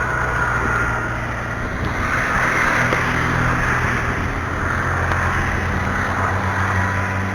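Engine of large farm machinery running steadily, a low hum with a rough hiss above it.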